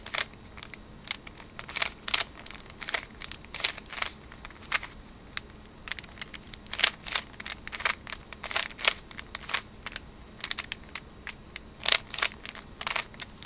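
Plastic Rubik's Cube layers being twisted by hand: an irregular run of quick clicks and clacks, often several in fast succession.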